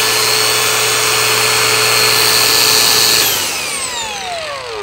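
Makita XAG04 18V brushless cordless angle grinder running free at full speed with no disc fitted, a loud steady whine. About three seconds in the switch is let go and the motor winds down, its pitch falling over about a second and a half.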